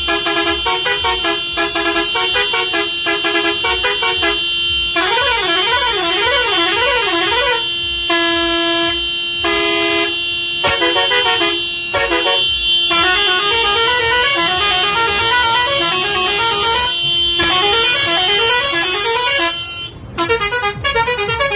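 Roots six-pipe electric musical horn sounding a run of tunes: rapid alternating notes, quick warbling runs, a few long held tones and stepping note sequences. It breaks off briefly about twenty seconds in.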